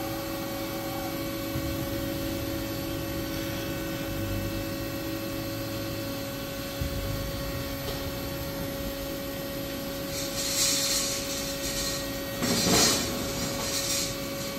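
Haas UMC-750 five-axis machining center's trunnion table rotating and tilting under its servo drives: a steady hum with a constant whine. From about ten seconds in come several short hissing bursts, the loudest near the end.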